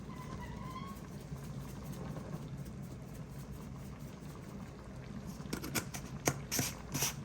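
A pot of chicken and potato curry cooking, with a steady low rumble throughout. About five and a half seconds in comes a quick run of sharp clicks and taps.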